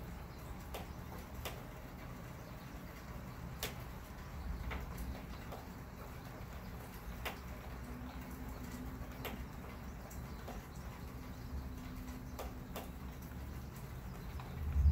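Outdoor ambience in a lull of a thunderstorm: a steady low rumble with scattered faint ticks, then a louder low rumble of thunder building right at the end.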